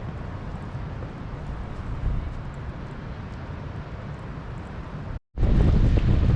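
Blizzard wind buffeting the microphone in a steady low rumble with occasional gusts. After a brief cutout about five seconds in it comes back much louder.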